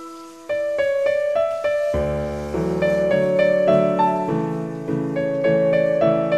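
Background piano music: a gentle melody of single notes, with lower notes joining in about two seconds in.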